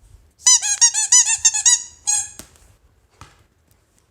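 Squeaky toy ball being squeezed: a quick run of about ten high squeaks in a second and a half, then one more after a short pause.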